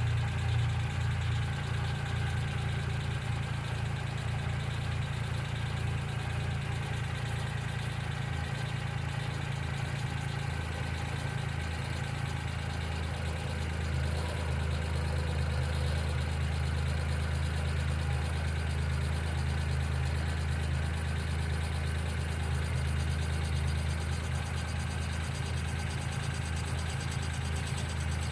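1995 Geo Metro engine idling steadily.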